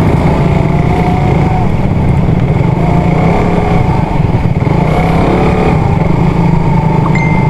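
Motorcycle engine running steadily while the bike is ridden along a rough dirt road, heard from the rider's position.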